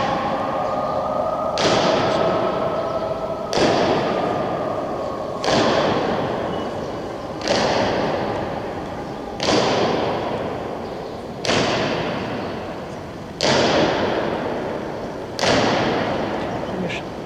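Soldiers' boots striking a stone floor in unison in a slow ceremonial march: eight heavy steps about two seconds apart, each ringing on in a long echo.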